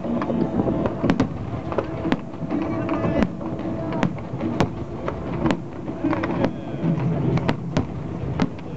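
Aerial firework shells bursting overhead in a display: a string of sharp bangs, roughly one every second, irregularly spaced, over a steady background din.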